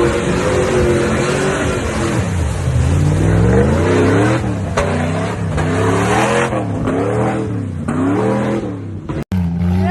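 An off-road vehicle's engine, loud and revving up and down several times in quick succession, over a haze of tyre and terrain noise. It cuts off abruptly near the end and another engine note follows.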